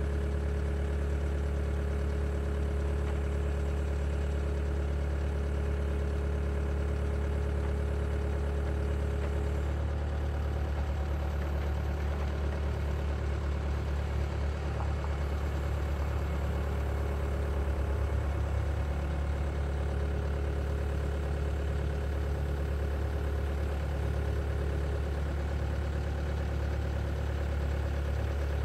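Bobcat skid-steer loader's diesel engine running steadily while the loader lifts a gable truss, a constant low hum throughout.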